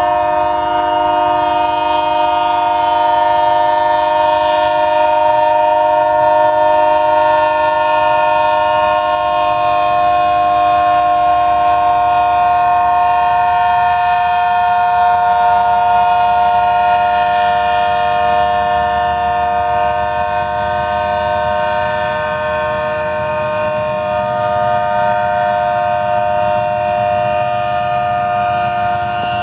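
Locomotive air horn stuck on, sounding one unbroken, steady chord of several notes rather than a signalled blast, over the low rumble of the passing train.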